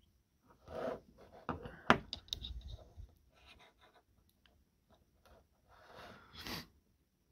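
Handling noise of two steel Rover V8 hydraulic tappets being turned and pressed together in the fingers on a wooden table top: rubbing and scraping, with light clicks and one sharp click about two seconds in.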